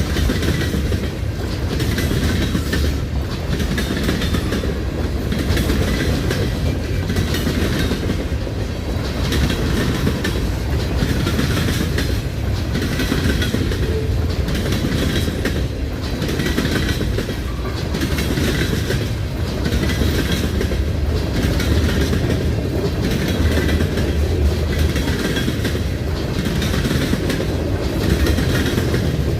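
Freight cars of a CN freight train rolling past, with a steady rumble and a regular clickety-clack of wheels over rail joints about once a second.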